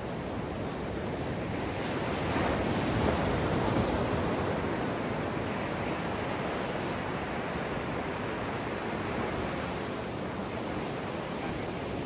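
Ocean surf breaking and washing up a sandy beach, a steady rushing wash that swells louder a couple of seconds in and then settles.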